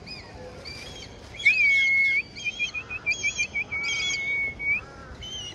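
Kites calling in high, thin whistles. About a second and a half in comes a long drawn whistle, then a quick run of short notes and another long held whistle.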